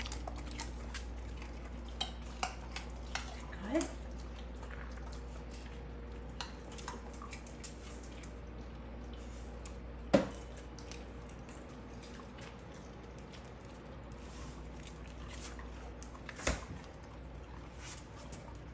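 Light clicks and knocks of dogs and a toy on a tile floor, with a short rising squeak about four seconds in and a single louder knock about ten seconds in, another near the end.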